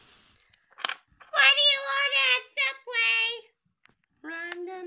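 A high-pitched voice making wordless, sing-song sounds for about two seconds, then again briefly near the end. A short sharp click comes about a second in, before the voice.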